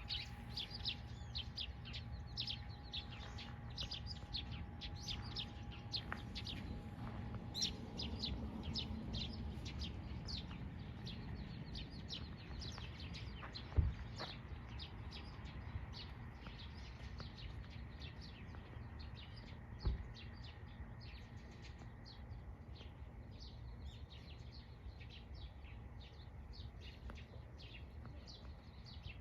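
Small birds chirping continuously, a dense run of short, rapid, high chirps. Two dull thumps break in about 14 and 20 seconds in.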